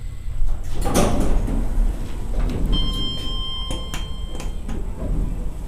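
Kone hydraulic elevator's doors sliding, with a steady electronic tone sounding for about two seconds in the middle.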